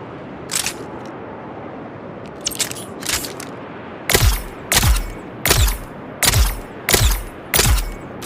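P-35 Re-Educator dart gun sound effect: a few light clicks, then six shots about 0.6 s apart, each a sharp crack with a low thump that drops in pitch.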